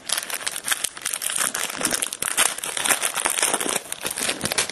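Trading card pack wrapper crinkling and tearing open, a continuous fast crackle of handled foil.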